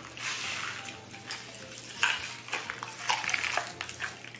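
Pop Rocks popping candy tipped from their packets into the mouth with a short rustling pour, then scattered crackling pops and clicks as the candy fizzes.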